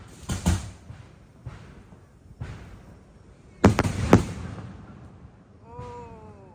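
Aerial firework shells bursting: a booming report about half a second in, two fainter ones after it, then the loudest, a quick cluster of sharp bangs a little before the middle.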